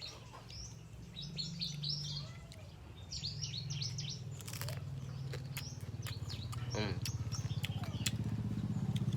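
Small birds chirping in short clusters, over a low engine drone that grows steadily louder toward the end.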